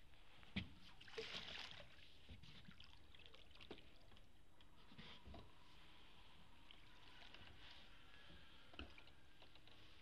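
Faint water sounds of a rowing oar in canal water: a light knock about half a second in, a short splash and trickle just after it, then scattered small drips and ticks over quiet lapping.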